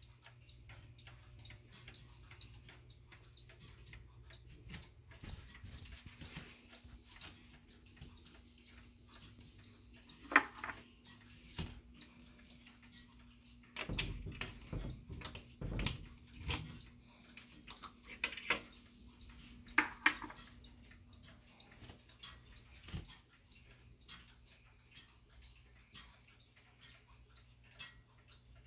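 A 1970s Howard Miller 610-152 grandfather clock's Urgos movement ticking steadily. Louder clicks and knocks come near the middle, as a small brass key is turned in the case door's lock.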